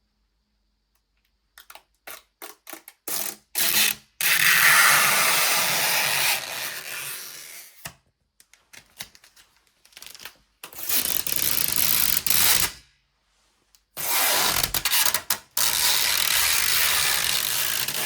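Mechanical clicking, then three bursts of rasping, ratchet-like noise a few seconds each, with pauses and more clicks between them.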